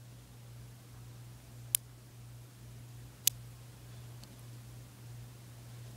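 Small Buckyball neodymium magnet spheres snapping together: two sharp clicks about a second and a half apart, then a fainter tick, over a low steady hum.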